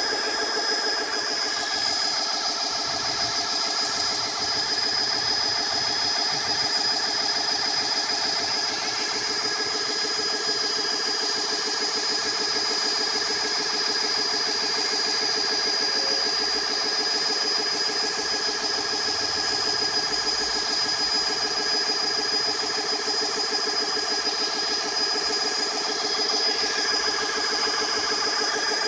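GX-E-CS2 electric high-pressure piston compressor running steadily as it fills a PCP air rifle's reservoir with compressed air toward 2500 psi: a fast, even chugging with a steady high whine over it.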